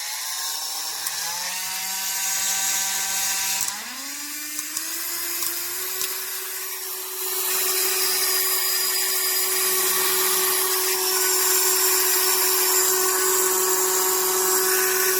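Cordless 12V mini rotary tool motor spinning up in two rising stages, then running at a steady whine that grows louder about seven seconds in. It makes a grinding, vibrating noise, which the owner takes as the sign of a faulty motor.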